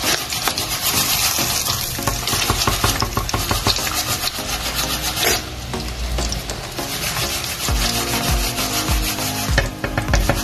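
Chicken pieces frying in hot, foaming oil in a frying pan: a steady, dense crackling sizzle.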